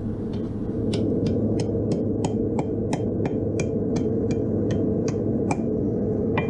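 Hand hammer striking steel on an anvil, about three blows a second in a steady rhythm for some five seconds, then a single blow near the end, each strike ringing briefly. A steady low rumble runs underneath.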